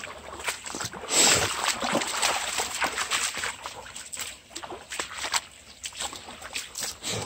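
Feet splashing and sloshing through a shallow, stony brook: a run of short wading steps, with a louder, longer splash about a second in.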